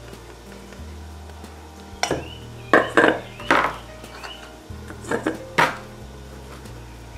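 Kitchen knife scraping and knocking inside a baguette's crust as the crumb is hollowed out: a string of about seven short scrapes and knocks starting about two seconds in, over soft background music.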